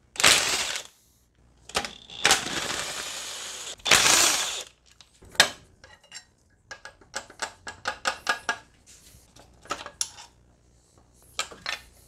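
Hand tools and small metal parts clinking against a Mercedes OM646 diesel engine while its covers are unbolted. A few loud clanks and a longer scraping rush come near the start, then a run of light irregular clicks.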